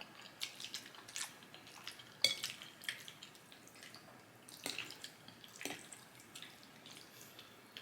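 Wet chewing and mouth sounds of someone eating sauced pasta: soft, irregular smacks and clicks every second or so.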